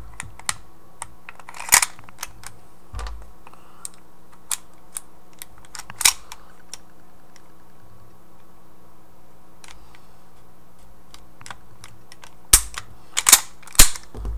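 Metal slide and frame of a KJW 1911 gas blowback airsoft pistol clicking and clacking as it is put back together after field stripping. There are scattered small clicks, louder clacks about two and six seconds in, and a burst of several loud clacks near the end.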